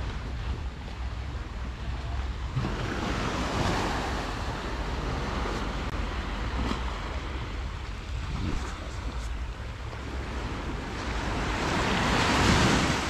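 Small waves breaking and washing up on a sandy shore, swelling twice and loudest near the end, with wind on the microphone making a steady low rumble.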